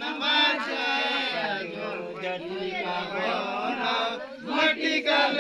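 Several men's voices chanting together, overlapping one another.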